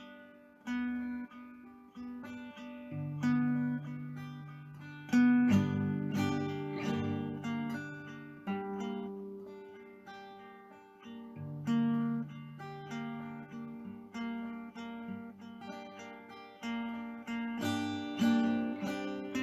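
Background music: acoustic guitar played finger-style, plucked notes and chords ringing out and fading.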